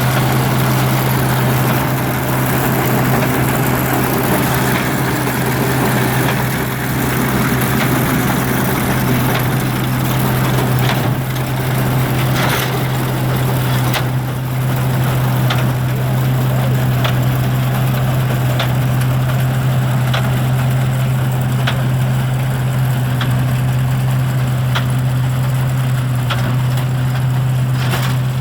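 Arthur Young hay baler, an early forerunner of the New Holland balers, running under power with a steady engine drone. From about a third of the way in, a sharp clack repeats roughly once a second.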